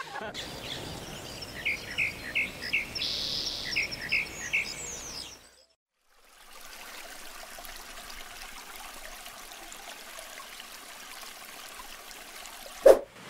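Birds chirping, a run of short repeated calls, over the steady rush of a flowing stream; after a brief dropout the water sound carries on alone. A single short loud hit comes near the end.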